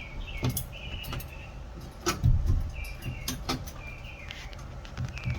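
A bird chirping over and over, short high notes about every half second to second. Scattered sharp clicks and a low rumble, loudest about two seconds in, come from handling close to the microphone.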